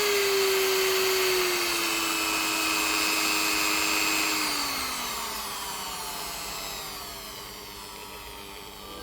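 Corded rotary tool's motor running with a high whine that steps down in pitch as the speed is lowered, then glides lower and fades as the motor spins down.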